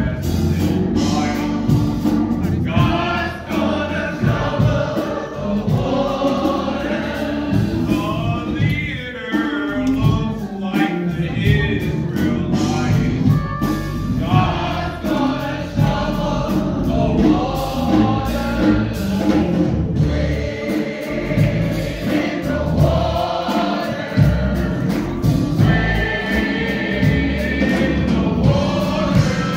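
A church choir singing a gospel hymn over steady low accompaniment.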